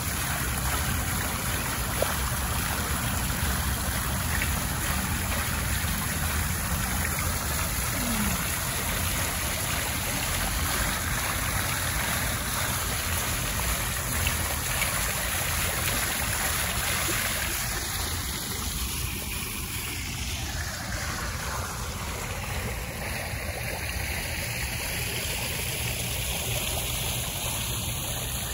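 Water of a tiered fountain spilling from its raised bowl and splashing into the basin below, a steady rushing and splashing.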